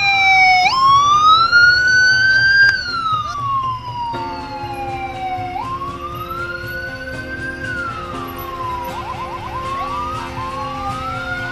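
Police siren wailing, its pitch rising and falling slowly in sweeps two to three seconds long, with a brief quick warble about nine seconds in.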